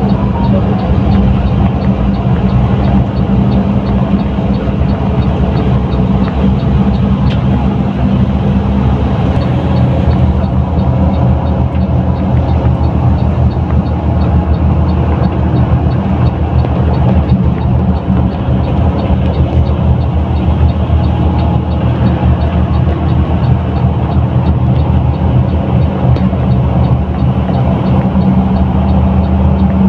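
Diesel engine of a front-engined Mercedes-Benz 1623 bus droning steadily under way, with road noise, loud and even throughout.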